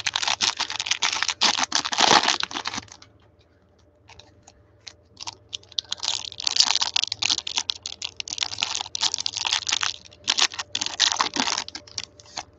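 Foil wrapper of a Prizm trading-card pack crinkling and tearing as gloved hands rip it open and handle it. It comes in two spells of rapid crackling, with a pause of about two seconds in between.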